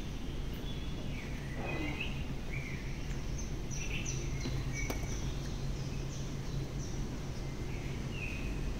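Steady low hum of a cruise ship's machinery, with short, high bird chirps scattered over it every second or so.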